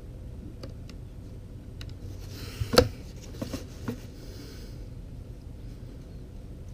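A single sharp crack from a suppressed Savage MKII .22LR bolt-action rifle as the trigger is pulled on a CCI Quiet-22 subsonic round, about halfway through, followed by two lighter mechanical clicks.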